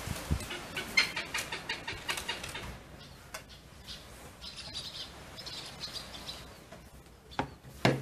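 Oriental pied hornbills cackling as they arrive to feed: a fast run of harsh, clucking notes over the first three seconds, followed by fainter, higher chirps. Two sharp knocks near the end.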